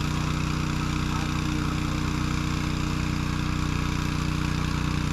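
An engine running steadily at constant speed, an even hum that holds the same pitch and level throughout.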